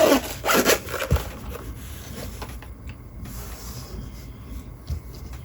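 Packaging being opened by hand: two quick rasping pulls, then quieter rustling and handling, with a soft thump about a second in and another near the end.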